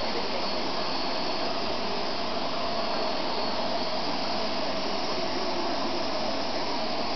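Upright stick vacuum cleaner running steadily: an even rush of air with a constant motor whine.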